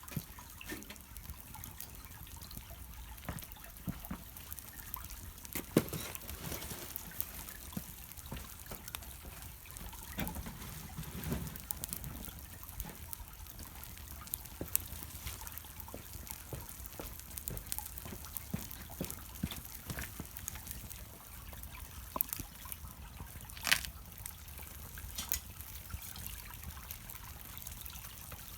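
Small wood fire burning on charcoal in a shichirin grill, crackling steadily with scattered sharp pops; the loudest pops come about six seconds in and again near the end.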